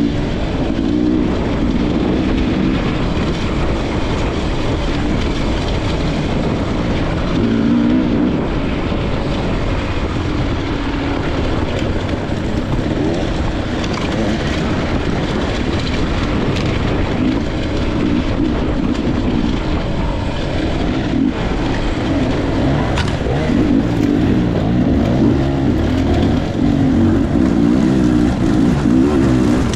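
Beta 300 RR two-stroke dirt bike engine being ridden over singletrack, its revs rising and falling continuously as the throttle is worked.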